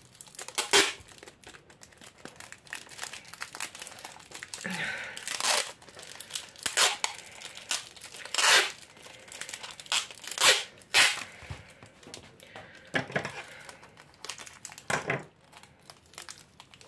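Clear packing tape pulled off its roll in short, loud pulls, about eight of them spread unevenly, and pressed round thin plastic cups that crinkle under the fingers.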